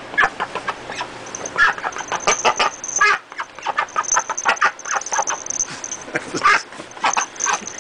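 Pet duck making a rapid string of short clucking calls as it pecks and grabs at a cat. A faint thin high whine runs through the middle of it.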